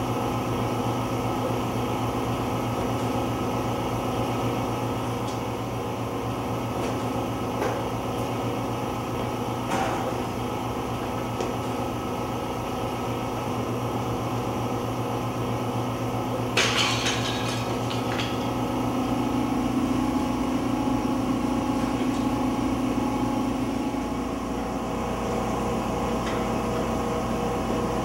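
A steady low mechanical hum with a few scattered knocks. A louder metallic clatter comes a little past halfway, and the hum swells slightly after it.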